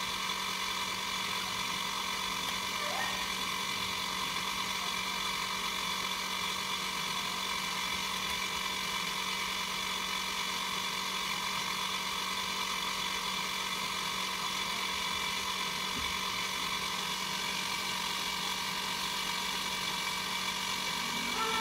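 Potter's wheel driven by an electric motor, running at a steady speed: an even hum with several steady high tones above it, unchanging throughout.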